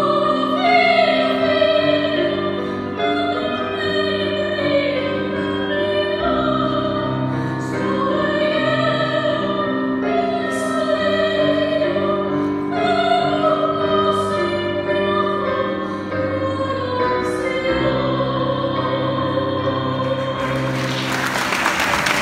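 A woman singing a Greek song to grand piano accompaniment. Applause breaks out near the end as the song closes.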